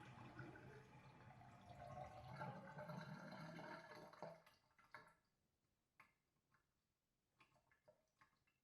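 Sink drain heard from a distance: water running down the drain, fading out about four seconds in, then a few scattered drips.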